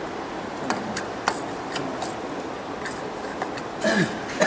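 Rotary label printing machine running with a steady hum, broken by a few sharp clicks. A voice starts near the end.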